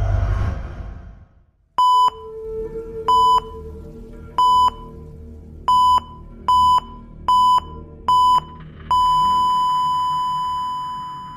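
Electronic heart-monitor beeps as a horror sound effect over a low drone: seven short beeps of one pitch, coming quicker after the first three, then one long steady tone like a flatline. A low rumble fades out in the first second.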